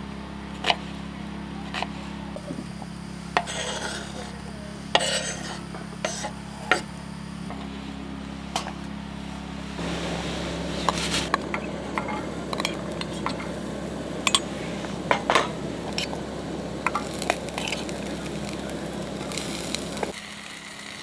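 Metal utensils knocking and clinking against cookware while food is stirred, with sizzling in the pan from about halfway through.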